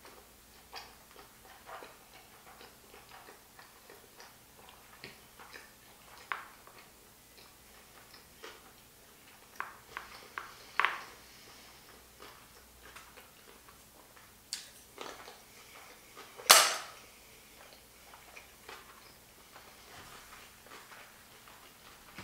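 Close-up mouth sounds of a mouthful of sushi roll being chewed with the lips closed: scattered soft wet clicks and smacks, with one sharper, louder sound about sixteen seconds in.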